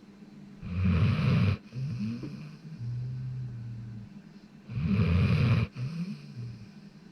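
Golden retriever snoring in its sleep: two loud snores about four seconds apart, each followed by a quieter, steady low tone.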